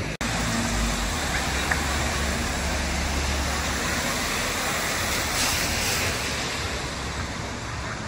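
Wet-street ambience: a steady hiss of car tyres on a rain-soaked road with passing traffic, broken by a brief drop-out just after the start.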